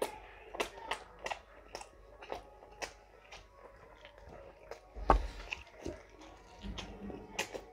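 Close-miked chewing and biting as a man eats flatbread and meat curry by hand, with short wet mouth clicks every second or so. A louder knock comes about five seconds in.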